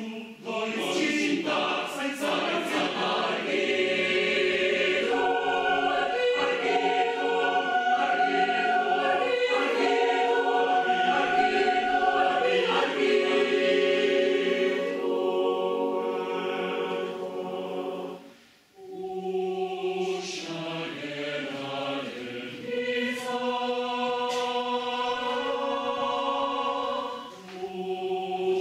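Mixed choir of women's and men's voices singing in sustained, held chords, breaking off briefly about two-thirds of the way through before coming back in.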